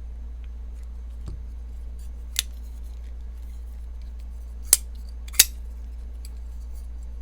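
Folding knife's blade being opened and snapped shut: three sharp metallic clicks, one about two and a half seconds in and two close together around the five-second mark, with faint small ticks between, over a steady low hum.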